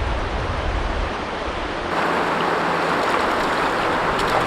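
Steady rush of river current, a constant noisy wash. About two seconds in, the sound changes abruptly and gets a little louder.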